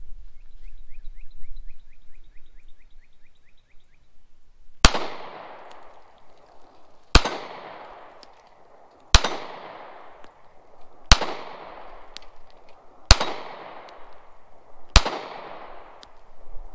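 Six shots from a Glock 43 subcompact 9mm pistol, fired slowly about two seconds apart, each crack trailed by an echo that dies away over about a second.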